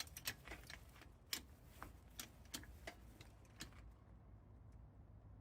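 Faint, irregular light clicks and taps, about two a second, that stop about four seconds in, leaving a low hum.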